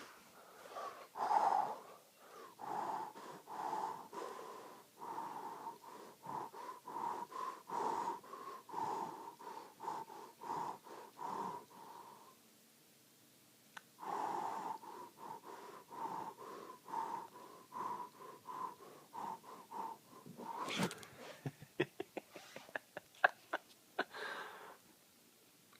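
A person panting hard in quick, rhythmic, wheezy breaths, each with a whistling note, stopping for about two seconds near the middle. About three-quarters of the way in comes a sudden loud rush, then a run of short sharp clicks and knocks.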